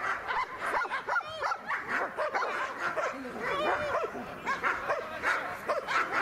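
Dogs barking over and over, several barks a second, the barks overlapping at different pitches.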